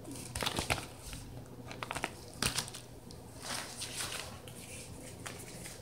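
Hands handling small cosmetic boxes and rummaging in a sequined makeup bag: a few short rustles, crinkles and light clicks, irregularly spaced.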